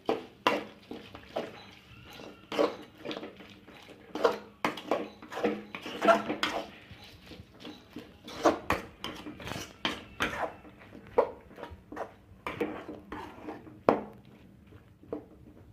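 Metal spoon scraping and clinking against a metal kadai as thick, cooked-down chicken sukka is stirred, in irregular strokes about once or twice a second. This is the final stir, with the pepper powder going in before the pan comes off the heat.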